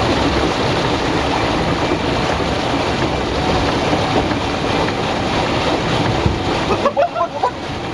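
Steady rushing noise of a small boat moving on the water, with a few brief higher sounds about seven seconds in.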